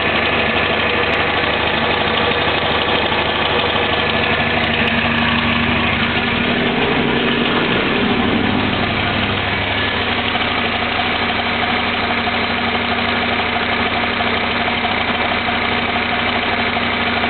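A 2001 Camaro SS's LS1 V8 running steadily. Its note shifts briefly about seven seconds in. The owner asks whether a noise it makes from about 1200 rpm up is lifter noise.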